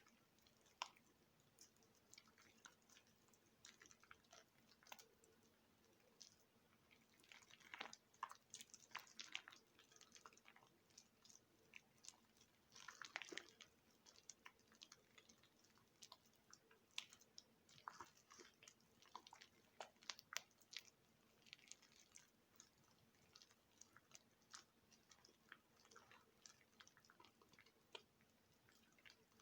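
Mushy soap, soaked in water for a week, being broken up, giving faint, irregular wet crackles and clicks. There are a few louder crunchy clusters, one at about eight seconds and another at about thirteen seconds.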